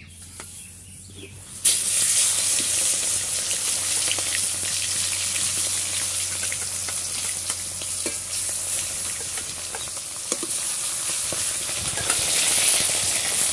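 Pieces of spotted snakehead (leta) fish, rubbed with salt and turmeric, sizzling loudly in hot oil in a kadai. The sizzle starts suddenly about two seconds in as the fish goes into the oil, runs on steadily and grows a little louder near the end.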